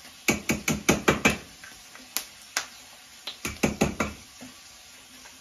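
A spoon knocking against a container while scooping out tomato paste: a quick run of sharp knocks, two single knocks, then another quick run.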